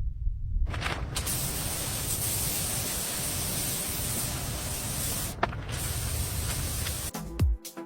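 A steady hiss, like a spray, starting about a second in, with a brief break near five seconds. Near the end it gives way to music with a thumping beat.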